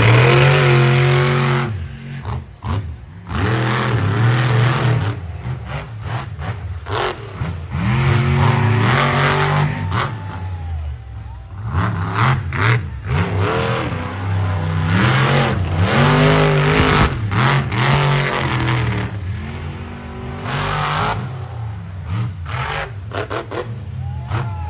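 Monster truck engine revving hard in repeated surges, its pitch climbing and falling about every four seconds with brief lulls between.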